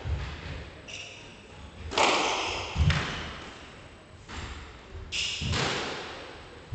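Squash rally: a string of sharp racket strikes and ball impacts off the walls, about one every second or so, each ringing out in the court's echo. Shoes squeak briefly on the wooden floor twice.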